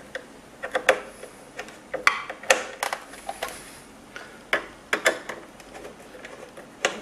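Irregular sharp metallic clicks and taps of a Phillips screwdriver driving screws through a monitor arm's mounting plate into the back of a computer monitor.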